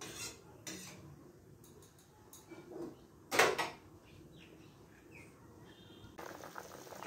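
Kitchen clatter: a metal spatula scraping and tapping in a steel kadai, with one sharp metallic clank about three and a half seconds in. Near the end comes a rustle of the phone being handled.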